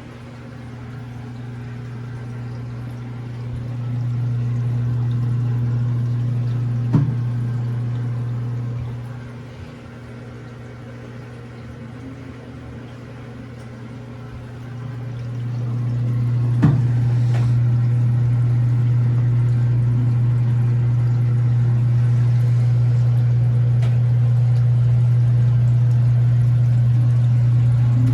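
Washing machine drain pump humming as it pumps water out, with water rushing through. The hum swells a few seconds in, falls back around nine seconds, then comes back louder and holds steady from about fifteen seconds. Two sharp clicks sound along the way.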